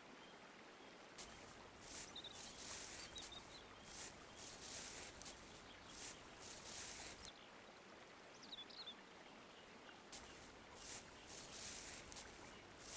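Faint footsteps rustling through dry leaf litter at a walking pace, in two stretches, with a few short bird chirps in the background.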